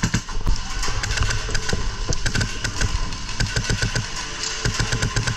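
KWA MK18 airsoft rifle with a Polarstar HPA engine firing rapid strings of shots, a fast run of sharp pops.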